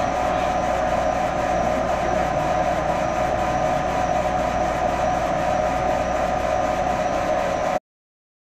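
Trotec Speedy 300 laser engraver running while raster-engraving: a steady mechanical hum and whir with a faint, even, rapid pulsing of about five a second. It cuts off suddenly near the end.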